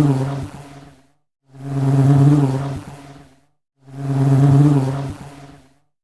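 Honey bee buzzing in flight, the buzz swelling up and fading away three times, about every two and a half seconds, with brief silences between.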